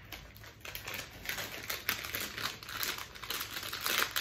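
Crinkly plastic packaging of a spare GoPro battery crackling and rustling in the hands as it is worked open, a dense irregular run of small crackles that grows louder near the end.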